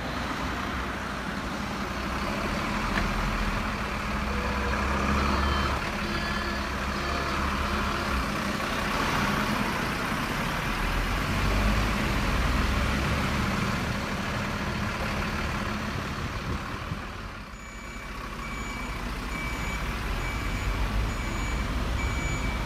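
Garbage truck engine running steadily. About three-quarters of the way in, a reversing alarm starts beeping at an even pace, a little over once a second.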